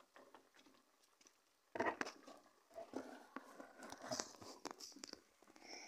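Long wooden paddle stirring thick red pepper paste in a large cauldron over a wood fire: faint scattered knocks, scrapes and crackles, with a cluster of knocks about two seconds in.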